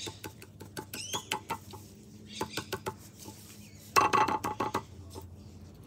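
Light clicks and clinks of small bottles and tools being handled, with a loud bird call about four seconds in.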